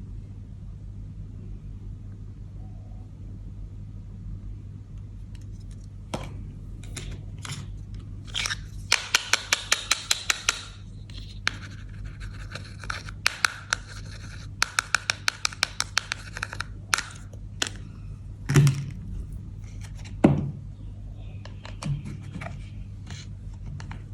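Small plastic toy pieces being handled: scattered clicks, three runs of rapid, even clicking at several clicks a second, then two soft thumps, over a steady low hum.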